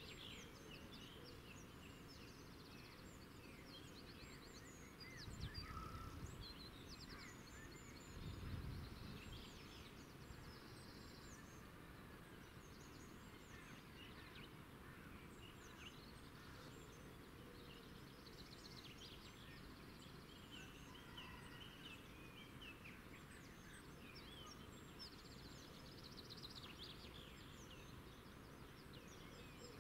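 Faint outdoor ambience of small birds chirping and trilling on and off, with two brief low rumbles about five and eight seconds in.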